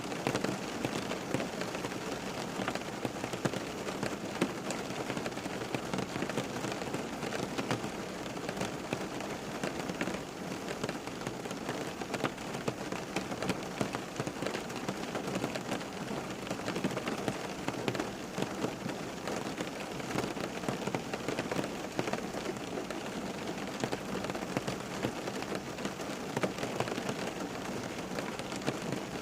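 Steady rain falling on a surface, a dense patter of many small drops, unbroken.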